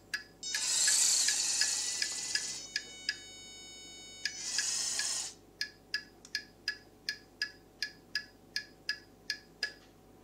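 Turbo Racing C50 1:76 RC semi truck's sound module clicking a turn-signal tick about three times a second. A loud hiss plays for about two seconds near the start, then a steady buzzy whine, then a second, shorter hiss around the middle while the ticking carries on.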